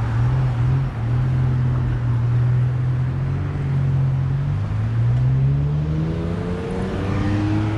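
Street traffic with a vehicle engine running close by: a steady low hum, then rising in pitch over the last few seconds as a vehicle accelerates.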